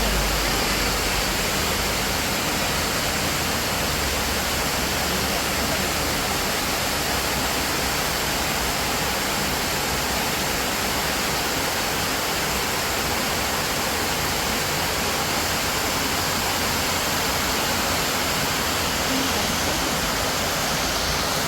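Heavy rain falling: a steady, unbroken rush of noise.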